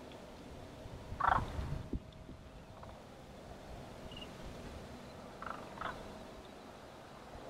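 Calls from a flock of large birds flying in: one loud rattling call about a second in, then two shorter, fainter calls near the end.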